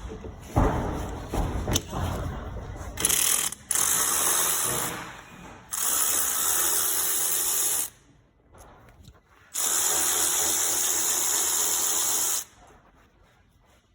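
Handheld power tool whirring in three runs of about two to three seconds each, after a few seconds of irregular knocks and clanks of tool handling.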